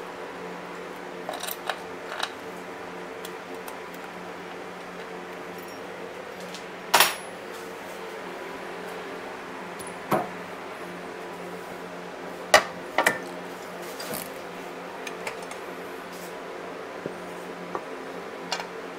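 Scattered sharp metallic clinks and clanks of tools and bolts as a motorcycle primary cover is unbolted and pulled off, the loudest clank about seven seconds in. Under them runs the steady hum of a shop fan.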